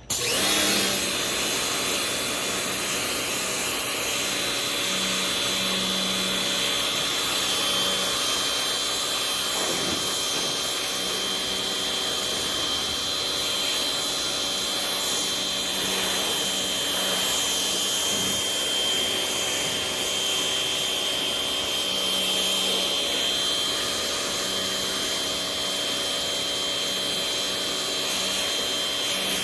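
Rock&Rocker HWY12 pressure washer switching on and running steadily, with a high motor whine over the hiss of the water spray.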